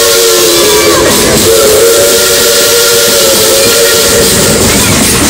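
Steam locomotive's chime whistle blowing a chord of several pitches in two blasts: one that trails off about a second in, then a longer one that holds until about four seconds in. A loud, steady hiss runs under it throughout.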